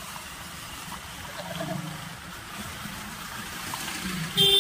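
A running vehicle heard on the move, its engine hum under steady wind and road hiss. A vehicle horn beeps loudly near the end.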